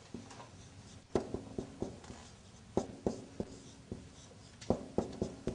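Marker writing on a whiteboard: irregular short taps and strokes as letters are written, some coming in quick groups.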